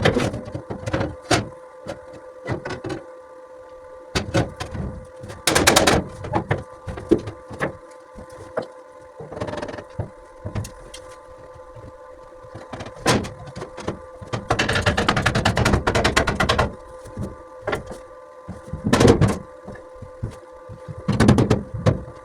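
Metalworking sounds: scattered sharp knocks and clanks, several short bursts of noise and one longer burst of about two seconds in the middle, over a steady hum.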